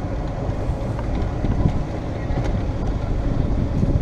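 Wind buffeting the microphone over the steady low rumble of a golf cart rolling along.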